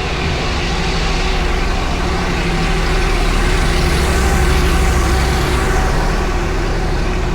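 Diesel train passing close by: a loud, steady heavy engine rumble with rolling noise that builds to a peak around the middle and then eases off.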